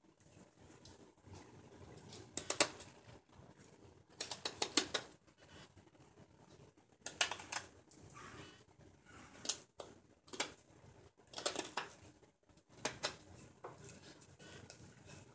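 Hook knife cutting into the bowl of a silver birch ladle: short scraping cuts come in quick clusters about every one to two seconds as the wood is hollowed out.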